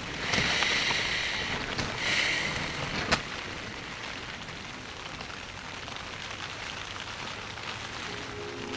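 Rain pattering steadily on a tent's fabric, heard from inside the tent, with two louder hissing swells in the first couple of seconds and one sharp tap about three seconds in.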